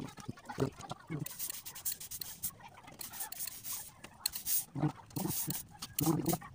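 A steam iron pressing and sliding over a fabric collar strip on a padded pressing board, with short hissing bursts. Brief low calls sound in the background a few times.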